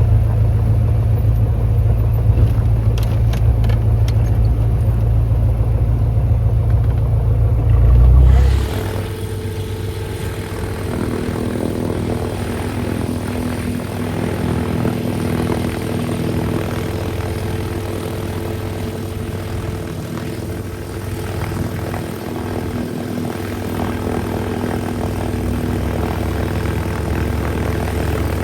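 Cessna 172's engine and propeller running steadily. About eight seconds in, the sound cuts abruptly from a heavy low rumble to a higher, evener drone with several steady tones.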